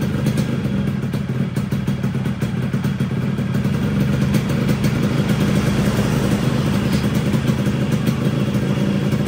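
Yamaha RX King 135 cc two-stroke single idling steadily through its new original full-set exhaust with a custom 'ngorok setan' baffle. It is on the small standard jet, so the exhaust has only a mild burble ('kurang ngorok').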